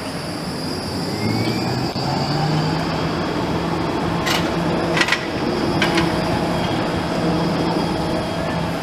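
Articulated low-floor electric tram passing close by, its traction drive humming steadily, with a faint whine rising in pitch about a second and a half in. A few sharp clicks come in the middle, over general street noise.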